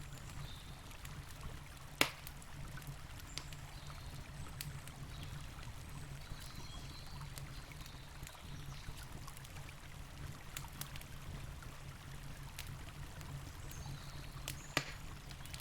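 Campfire crackling, with scattered pops of burning wood over the steady rush of a river. There is one louder snap about two seconds in and another near the end.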